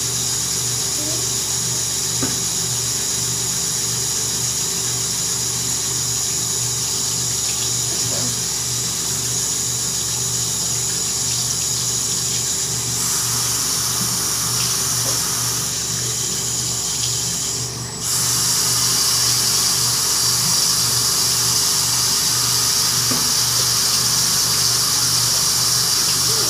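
Tap water running steadily into a bathroom sink, a continuous rush with a steady low hum beneath it. About two-thirds of the way through the flow dips briefly, then comes back louder.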